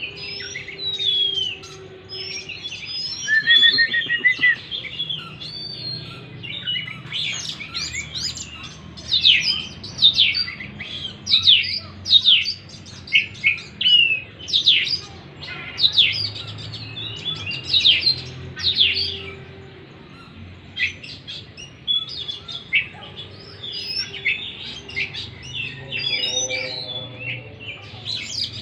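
Oriental magpie-robin song: a varied stream of loud whistled phrases. In the middle of the song comes a run of fast, steeply falling notes, one every second or so.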